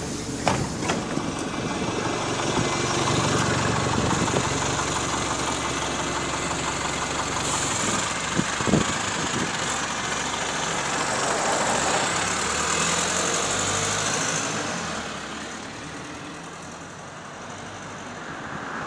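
Wright StreetLite single-deck bus engine idling close by at the stop, with a sharp knock about nine seconds in; near the end the engine sound fades as the bus pulls away.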